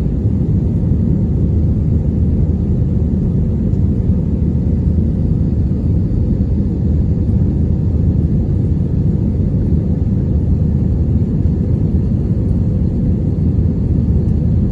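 Steady low rumble of an Airbus A321neo's jet engines and rushing air, heard from inside the passenger cabin during take-off.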